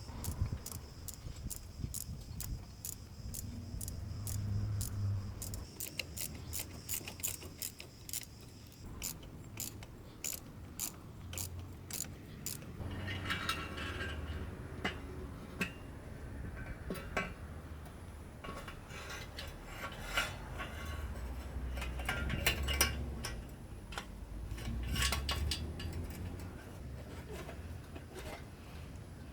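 Ratchet wrench clicking in a steady rhythm, about two to three clicks a second, for around twelve seconds as bolts are turned, then irregular metallic clicks and tool-handling clatter.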